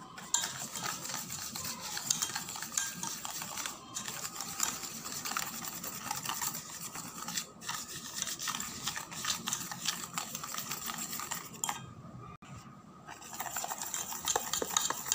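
Wire whisk beating egg and sugar in a stainless steel bowl: a rapid, continuous clicking and scraping of the wires against the metal. It eases off briefly about twelve seconds in, then picks up again. The beating dissolves the sugar into the egg.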